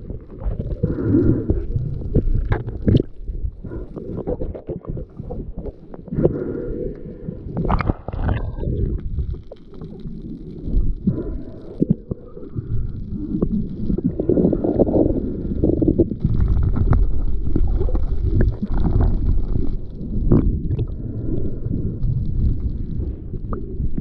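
Muffled underwater rumble and gurgling of water moving against a camera housing as a freediver swims and dives, with scattered sharp clicks and knocks.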